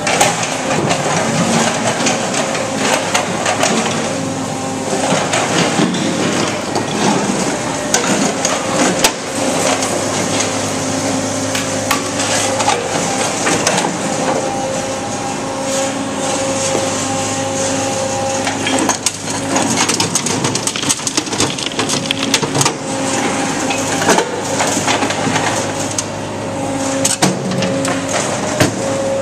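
Brokk 180 remote-controlled demolition robot working its grapple: a steady hydraulic hum runs throughout, while broken concrete chunks clatter, scrape and knock as they are grabbed and dropped into a steel bin.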